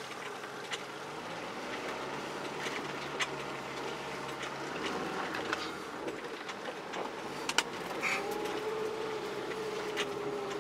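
Off-road vehicle driving slowly over a rutted forest track, heard from inside: the engine runs low and steady while the body knocks and rattles over the bumps. A steady whine comes in about eight seconds in.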